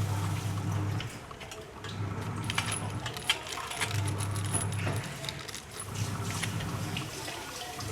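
Light metallic clinks and rattles of small metal parts being handled, such as bolts, nuts and the stand's steel pieces. They sit over a low hum that swells and fades about every two seconds.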